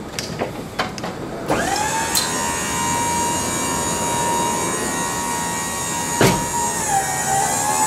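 Truck liftgate's electric hydraulic pump motor whining steadily as the platform lowers. It starts about a second and a half in with a quick rise in pitch and drops slightly in pitch near the end. A few clicks come before it starts, and a sharp knock comes about six seconds in.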